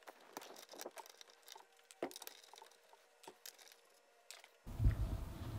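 Faint, irregular metal clicks and light taps of a socket wrench working the 10 mm nuts off a car door mirror's mounting studs.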